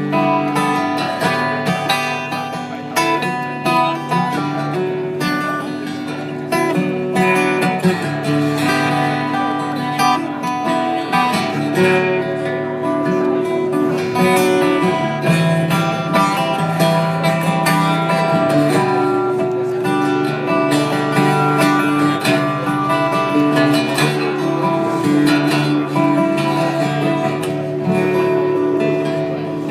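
Acoustic guitar played live, strummed chords in an instrumental passage without singing.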